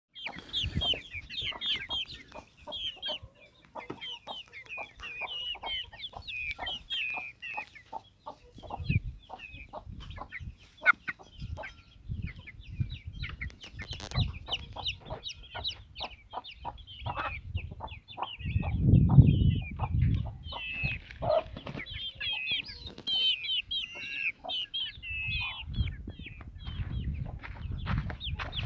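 Chickens clucking, with many short high chirps throughout. A louder low rumble comes about 19 seconds in.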